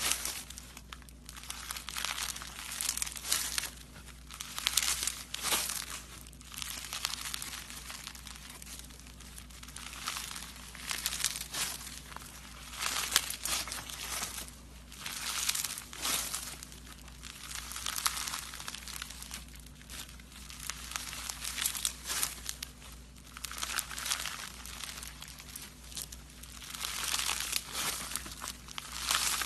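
Slime being kneaded and stretched by hand, giving irregular bursts of crackling, crinkling noise, with a steady low hum underneath.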